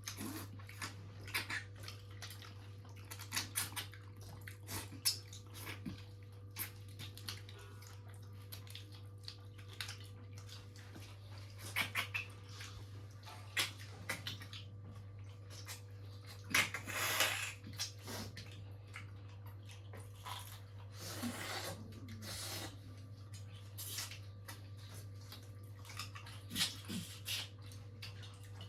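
A person eating fish curry and rice: chewing and lip-smacking with scattered short clicks and a couple of longer wet smears, over a steady low hum.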